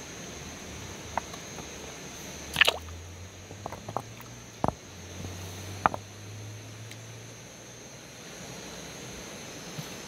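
Hands working in shallow water among river stones: a few small splashes, drips and sharp knocks. The loudest is a splash about two and a half seconds in.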